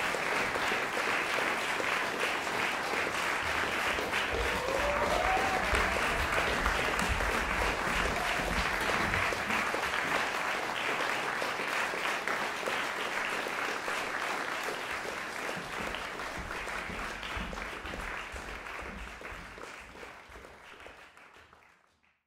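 Concert audience applauding after a string quartet performance, steady clapping that fades out over the last few seconds.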